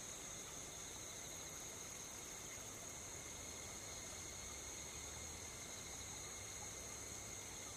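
A steady chorus of night insects: several continuous high-pitched trills at different pitches over a faint hiss.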